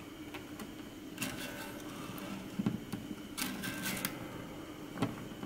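A nylon guitar string being threaded through and tied at a classical guitar's bridge: faint scratchy rustles and small clicks of the string and fingers against the bridge, in clusters about a second in and again about three and a half seconds in.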